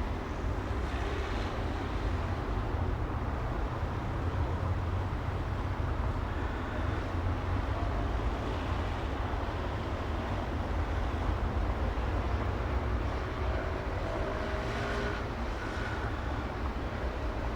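City street traffic: a steady low rumble of vehicles running past, with faint rising engine tones near the end.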